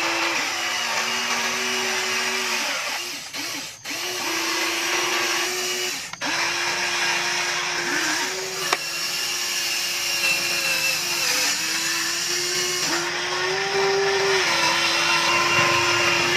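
Electric motors of an RC tracked excavator whining as its boom, arm and bucket dig and its upper body swings. The pitch steps up and down as each motion starts and stops, with short breaks about four and six seconds in.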